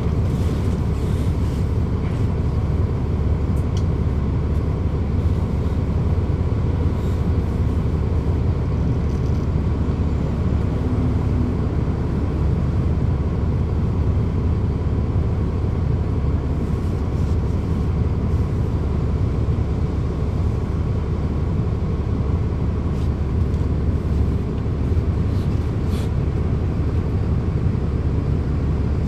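Cummins ISL9 diesel engine of a 2010 NABI 40-SFW transit bus, heard from inside the bus, running with a steady low drone, with a few brief clicks or rattles.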